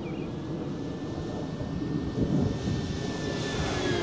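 Electric motor and propeller of a Dynam Hawker Hurricane RC model plane whining as it flies past, growing louder as it approaches and then dropping in pitch near the end as it passes overhead.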